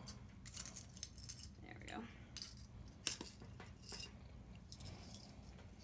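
Small metal dip-pen nibs clinking and rattling in a little tin as it is handled: a scatter of light clicks, the sharpest about three seconds in.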